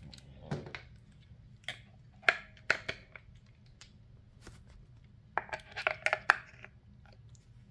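Batteries being handled and fitted into the battery compartment of a RadioShack 12-259 weather alert radio: scattered plastic-and-metal clicks and rattles, with a quick run of clicks near the end, over a faint steady hum.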